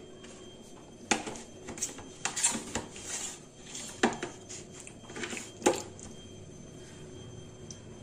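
Kitchen tongs clicking and clattering against an air fryer basket and a plastic tub while marinated chicken pieces are picked up and set down, with three sharp clacks about a second, four seconds and nearly six seconds in. The handling stops about six seconds in.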